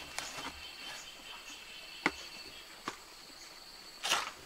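Insects chirring steadily in a high, even tone, with a few sharp clicks and one louder brief rustle near the end.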